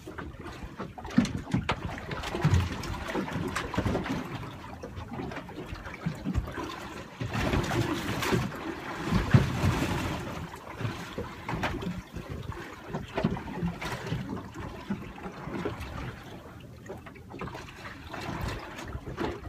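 Water lapping and sloshing against the hull of a small boat, louder for a few seconds in the middle, with scattered light knocks on deck.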